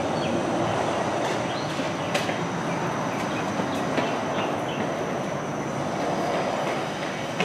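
Steady rumbling, rushing noise with a few light clicks, the clearest about two seconds and four seconds in.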